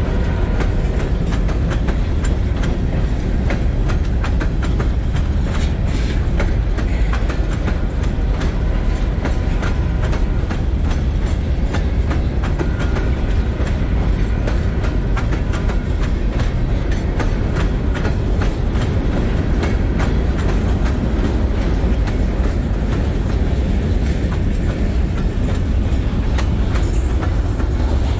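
Freight train hopper cars rolling past: a steady low rumble of steel wheels on rail, with a fast run of clicks as the wheels cross rail joints.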